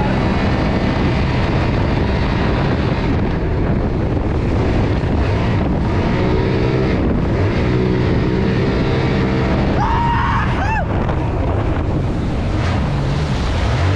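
Turbocharged Sea-Doo Spark jet kart engine running at speed, mixed with wind rushing over the microphone and the hiss of water spray.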